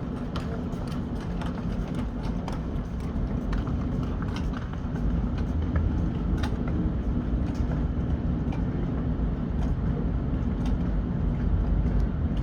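Train rumbling steadily low, with scattered light clicks and knocks through it; the rumble grows a little louder about five seconds in.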